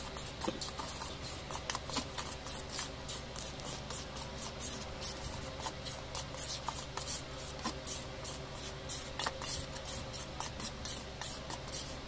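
Metal spoon stirring a dry flour and cornstarch coating mix in a stainless steel bowl: quick, repeated scraping strokes of the spoon through the powder and against the bowl, several a second.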